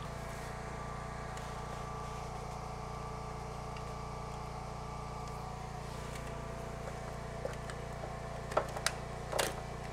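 Steady drone of a generator engine running, with a few light clicks and a short scrape near the end as metal parts of the outboard's fuel pump assembly are handled.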